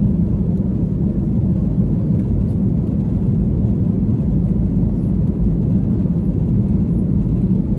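Jet airliner's engines and airflow heard from inside the cabin during takeoff: a loud, steady, low rumble.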